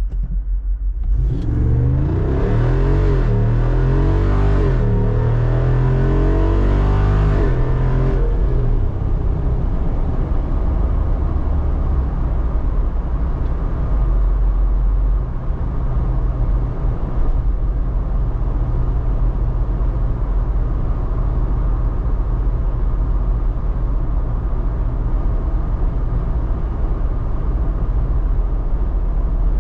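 Jeep Wrangler Rubicon 392's 6.4-litre Hemi V8 opening up about a second in, its pitch climbing and dipping for several seconds under acceleration, then settling into a steady drone as it cruises.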